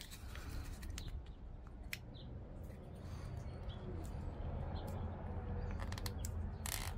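Faint clicks and light rattles of a plastic mousetrap being turned over and handled, over a low steady outdoor rumble, with a few faint bird chirps.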